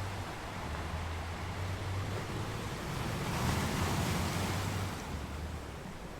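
Ocean waves washing on a shore, a steady surf hiss with one wave surging up louder around the middle and fading away.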